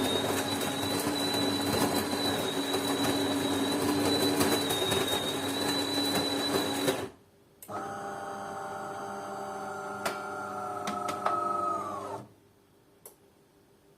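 DeLonghi bean-to-cup coffee machine running while making a cold coffee: a loud mechanical whir with a steady high whine that cuts off about seven seconds in. Then a quieter humming run that winds down and stops about twelve seconds in, followed by a single click.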